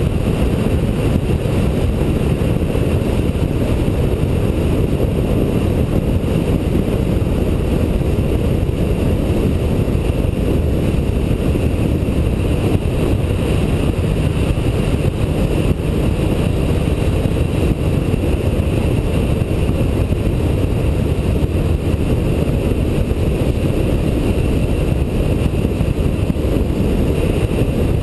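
Wind rushing and buffeting over the camera at road speed, with the steady drone of a Yamaha motorcycle's engine underneath as it cruises at an even pace.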